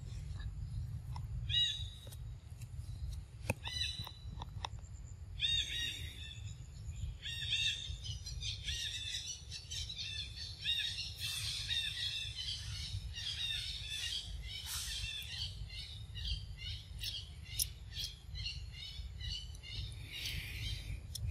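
Birds calling in the forest canopy: many short notes that rise and fall, repeated in quick series, getting busier through the middle. A steady low rumble runs underneath.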